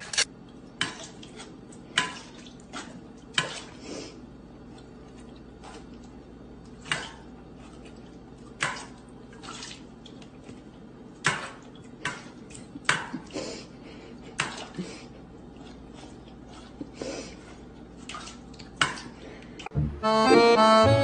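A dog eating and drinking from stainless steel food and water bowls: irregular clinks and knocks of the metal bowls, often less than a second apart. Accordion music starts near the end.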